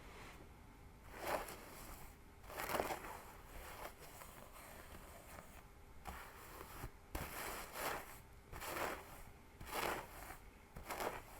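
Fingers scratching a scalp and pulling through hair close to the microphone: a series of dry, crackly scratching strokes, about one a second at an uneven pace.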